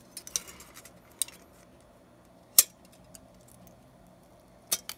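Scissors cutting thin aluminium can sheet: a few sharp, separate snips and metallic clicks, the loudest about halfway through, with faint crinkling of the metal between them.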